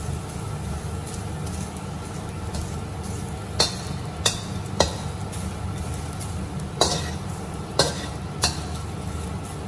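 Dried anchovies sizzling faintly in oil in a stainless steel wok as a metal spatula stirs them. From about a third of the way in, the spatula knocks against the wok in six sharp clicks. A steady low hum runs beneath.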